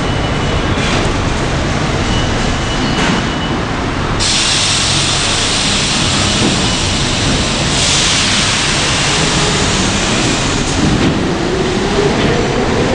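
New York City subway train at a station platform: a steady low rumble, with a loud hiss that comes on suddenly about four seconds in and lasts some seven seconds. Near the end the traction motors start a whine that rises in pitch as the train begins to pull out.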